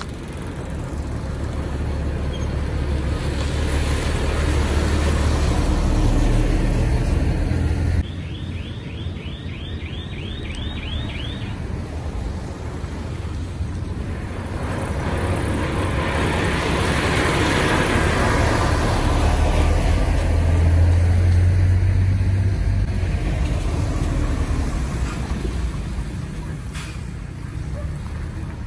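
Road traffic passing close by on a dirt road: heavy dump trucks, cars and motorbikes, with a deep engine rumble and tyre noise that swells twice as vehicles go past.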